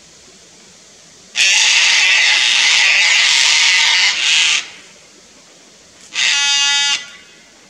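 Sulphur-crested cockatoos screeching in alarm at a lace monitor near their nest: one long harsh screech of about three seconds, then a shorter, clearer-pitched screech about six seconds in.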